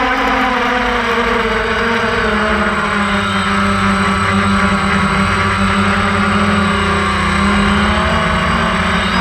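DJI Phantom 1 quadcopter's electric motors and propellers whining in flight, loud and close from the camera mounted on the airframe. The hum sinks slightly in pitch over the first few seconds, then holds steady.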